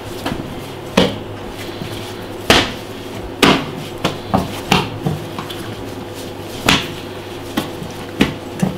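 About a dozen irregular knocks and taps on a kitchen work surface as bread dough is cut and divided into pieces, over a steady low hum.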